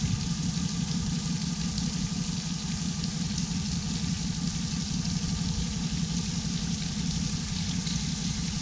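Boat engine running steadily with a constant low hum, under an even hiss of rushing water and wind.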